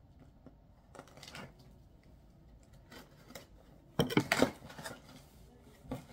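A cardboard box and its packaging being opened and handled: quiet scrapes and rustles, then a burst of loud crinkling and clatter about four seconds in.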